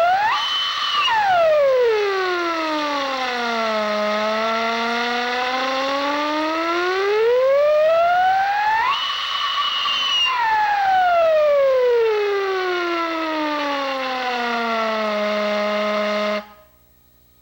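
Five-inch Crane mockingbird whistle blown on compressed air, its pitch swept by the whistle's movable piston. It glides up fast to a high held note, slides slowly down to a low held note, rises and falls the same way a second time, then cuts off suddenly.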